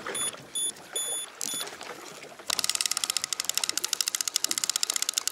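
A fishing reel being wound in with a fast, even clicking of about ten strokes a second, starting a couple of seconds in. Before it come a few short high beeps.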